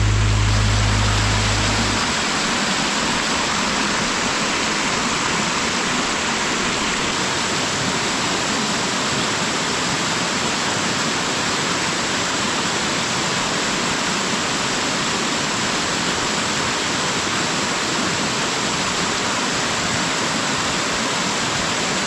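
Waterfall: falling water rushing and splashing in a steady, even roar of noise.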